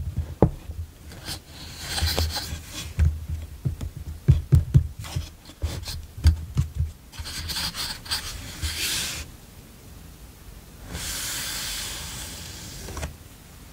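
Paper memo pads and cards handled in a wooden tray: soft knocks of fingers and pads against the wood, with spells of papery rustling and sliding, the longest and steadiest near the end.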